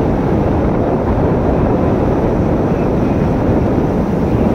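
Motorcycle riding steadily along a road, its engine and tyres lost in a loud, constant rumble of wind buffeting the microphone.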